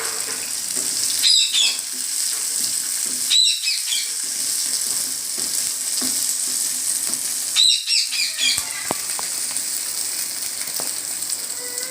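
Shallots, garlic and roasted dals frying in oil in a pan, sizzling with a steady hiss. Three short high chirping bursts come through, about a second in, past three seconds and near eight seconds, and a few sharp taps follow later.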